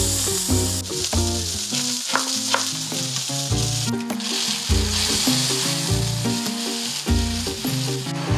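Salmon fillet sizzling steadily as it pan-fries in a non-stick pan with no added oil, in the fat rendered from the fish itself. Background music with bass notes plays over it.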